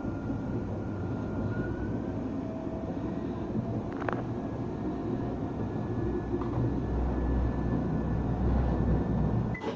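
Interior sound of an Alstom Citadis tram running: a steady low rumble and running noise with a faint thin motor whine, and a single click about four seconds in. The low rumble grows stronger in the last few seconds.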